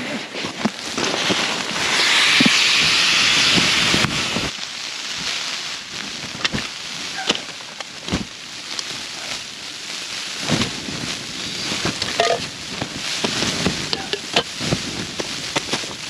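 Nylon stuff sacks and camping gear rustling and crackling as they are handled and packed, with a strong hiss lasting about two seconds near the start.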